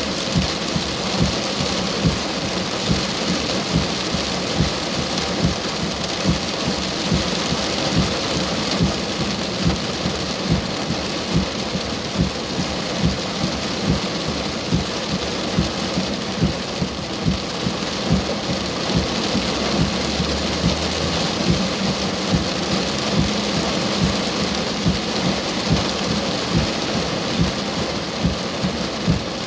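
Heavy rain pouring steadily, with a regular low thump about one and a half times a second.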